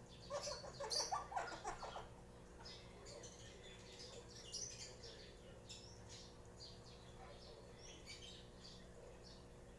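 Pet parrot chattering, a quick jumble of calls for about two seconds, then soft scattered chirps and clicks.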